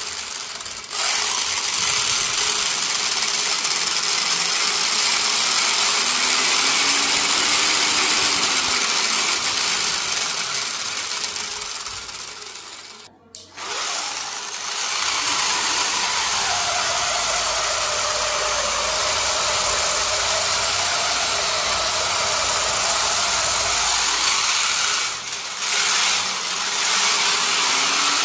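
Small DC motor driving a homemade plastic-gear gearbox, whirring steadily with gear noise as it spins the wheels. Its pitch rises and falls as the speed is changed. The sound breaks off briefly about halfway through.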